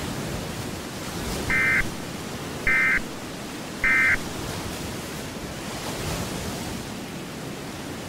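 Emergency Alert System end-of-message signal: three short, harsh digital data bursts, each about a third of a second long and about a second apart, starting about a second and a half in, marking the end of the alert. A steady hiss of noise runs underneath.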